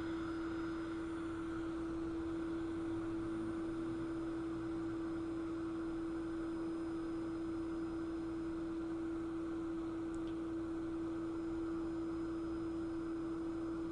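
Hot air rework station's blower running on in cool-down mode, a steady hum-like tone over a faint rush of air.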